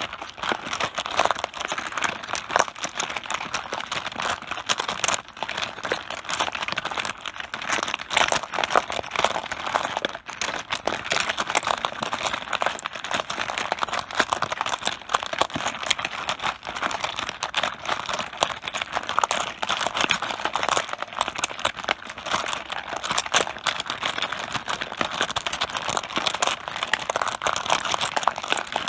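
Mahjong tiles clattering on a tabletop: a dense, continuous stream of small hard clicks as many tiles knock against each other and the table.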